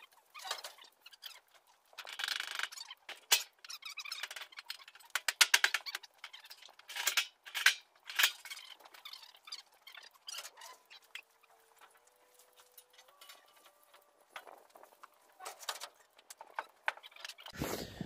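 Cattle pulling hay from a round bale and munching it: irregular dry rustling and crackling of hay with scattered clicks.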